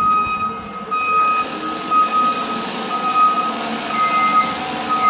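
Backup alarm on site machinery beeping at one steady pitch, about once a second, over a steady hum of machinery.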